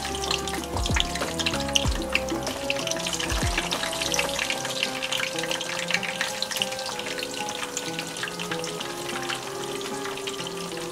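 Eggplant slices frying in hot oil in a pan, a steady dense crackling sizzle. Background music plays over it, and its low bass beat drops out about four seconds in.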